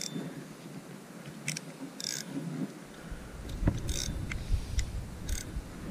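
Spinning fishing reel's gears and drag ratcheting in a few short bursts while a hooked fish is being played. A low rumble comes in on the microphone about three seconds in.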